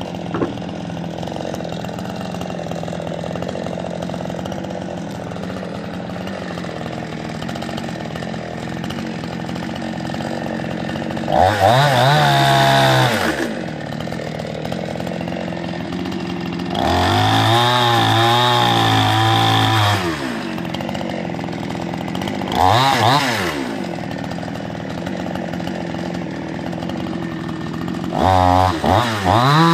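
Chinese-made two-stroke chainsaw idling steadily, then revved up to full throttle four times, each burst a second to three seconds long, as it cuts through dead branches.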